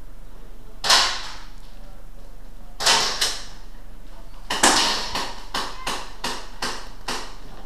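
Airsoft gunfire in an indoor building: a single sharp crack about a second in, two quick cracks near three seconds, then a rapid string of about seven single shots at roughly three a second, each with a short ringing tail.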